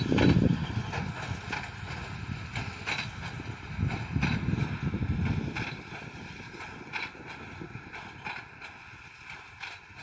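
John Deere 6215R tractor and John Deere 1433 large square baler working through a windrow of hay, with a regular knock from the baler about twice a second. Wind buffets the microphone at the start and again about four seconds in.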